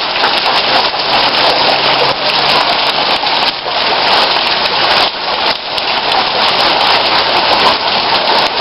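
Heavy rain pouring down steadily onto a flooded street, a dense even hiss with no letup.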